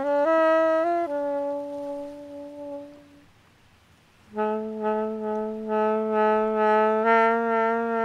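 Solo saxophone playing a slow melody: a few short notes, then a held note that fades out about three seconds in. After a brief pause, a long low note is held steady from about four seconds in.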